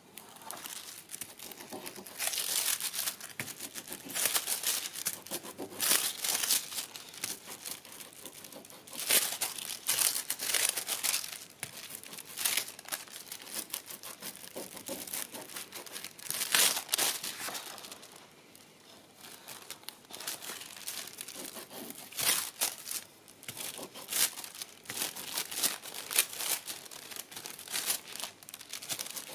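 Thin silver mirror transfer foil crinkling and crackling as it is pressed and rubbed down onto a painting by hand and peeled back, in irregular crackles with a quieter moment about two-thirds of the way through.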